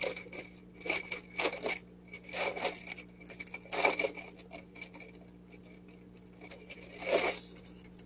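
Small plastic bags of diamond painting drills being handled, crinkling and rattling in several short bursts, the loudest about four seconds in.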